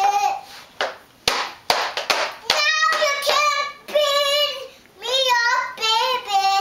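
A young girl singing a cappella in a high voice, holding wavering notes over several phrases, with a few sharp taps between them.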